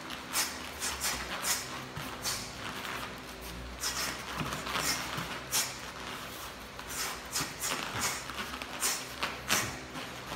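Shadowboxing: an irregular run of short, sharp hissing sounds, about one or two a second, from quick exhalations with each strike and feet moving on the gym mat, over a faint steady hum.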